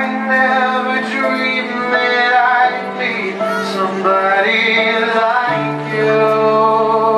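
Live band music: sustained keyboard chords that change twice, with a melody line above them that slides and bends in pitch.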